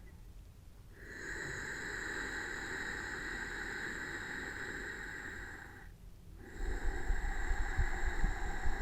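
Ujjayi breathing close to the microphone: a long, steady hissing breath drawn through a narrowed throat lasting about five seconds, a brief pause about six seconds in, then the next breath begins with low rumbling puffs of air on the microphone.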